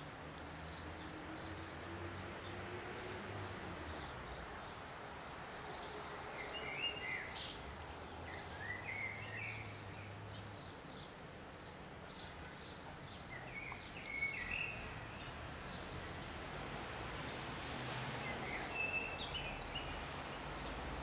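Birds chirping in short bursts, about four times, over steady outdoor background noise with a faint low hum.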